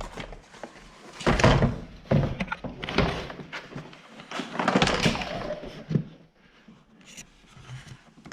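Knocks, clicks and scraping of plastic car door trim being worked by hand as its wiring connectors are unplugged, in several short bursts.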